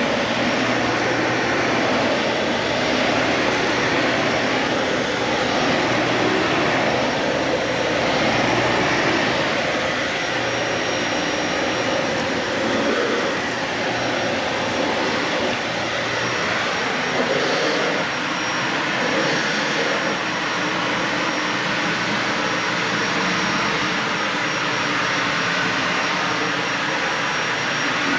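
Dyson Ball Animal 3 Extra upright vacuum cleaner running steadily as it vacuums carpet, a loud even rush with small swells as it is pushed back and forth.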